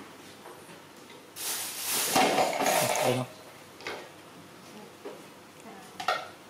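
Dishes and metal utensils clattering on a stainless steel table: a longer rattle and scrape from about a second and a half to three seconds in, a knock near four seconds, and a sharp clink near the end as a steel plate with a bowl on it is picked up.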